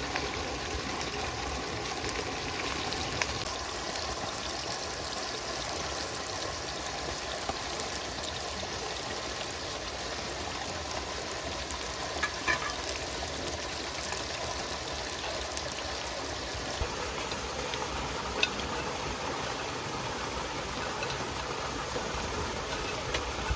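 A stream flowing steadily, with a few short clicks or knocks about halfway through and again later.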